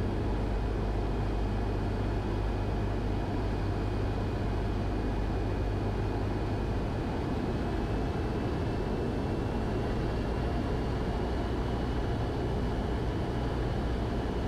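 Cessna 172's piston engine and propeller droning steadily in cruise, heard from inside the cockpit. A faint thin whine sits above the drone and rises slightly in pitch in the second half.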